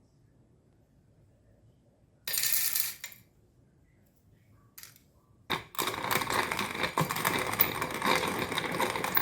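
L-Beans SD-9521 wooden hand-crank coffee grinder: a short clatter about two seconds in, then from about five seconds in the burrs crunching coffee beans steadily as the handle is turned, stopping abruptly at the end.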